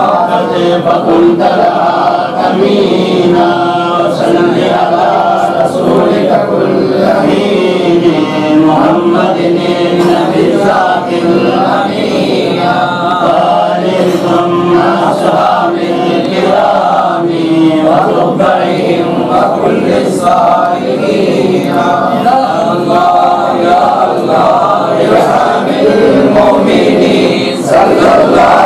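Group of men chanting Arabic devotional verses together in unison, a mawlid recitation read from booklets. The melodic chant carries on without a break.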